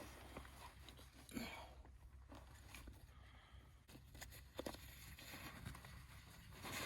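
Near silence outdoors, with a few faint scattered knocks and rustles.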